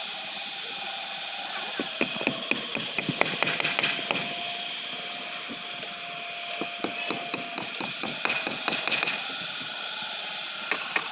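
Irregular light clicks and knocks, like hand tools striking at work, in two clusters, over a steady hiss.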